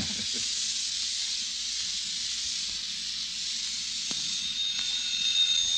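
Steady hiss from an old 1937 radio broadcast recording, heard in a gap between lines of dialogue, with two faint clicks about four and five seconds in.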